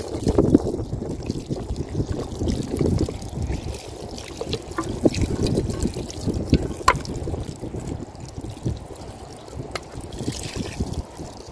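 Water pouring over raw meat in a plate and splashing onto sandy ground as the meat is rinsed, with small clicks of handling. Gusty wind rumbles on the microphone throughout and is the loudest sound.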